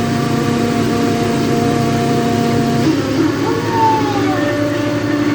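Boat engine running steadily, its pitch changing about three seconds in, with a few brief gliding tones after the change.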